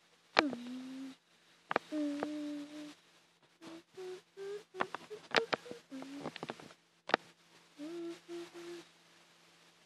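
A person humming a string of short, steady notes, one sliding down in pitch near the start, with sharp clicks between them.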